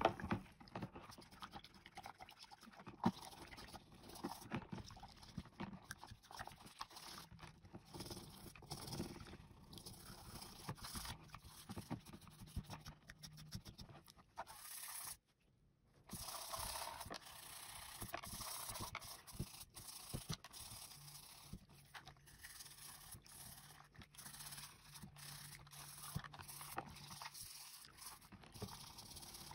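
Toothbrush scrubbing the plastic top shell of a computer mouse with soapy water: a faint, continuous scratchy brushing, cut off for about a second around halfway through.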